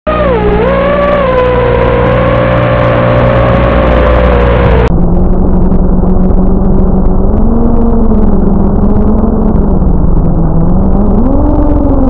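Chameleon FPV quadcopter's electric motors whining as it flies, the pitch rising and falling with the throttle. About five seconds in, the sound abruptly turns duller and lower-pitched.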